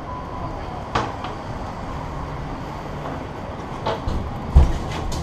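Bicycles being wheeled into an elevator car: a few sharp clicks and rattles over a low rumble, then one heavy thump about four and a half seconds in.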